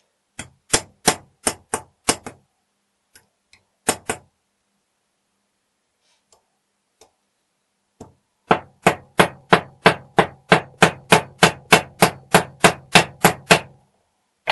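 Hammer striking a steel rivet on an anvil, peening it over to fix the broken slide of a Rotoplast window gearbox. There are about six spaced blows, then one more, then a quick even run of about four blows a second.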